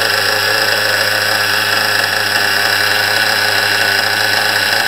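A nitro RC car's small glow-fuel engine idling steadily with a high, buzzing drone. Its carburettor needles are still at factory settings and not yet fine-tuned.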